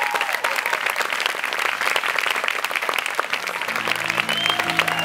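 Crowd of guests clapping steadily, with a whoop trailing off right at the start. About four seconds in, music with low held notes starts under the clapping.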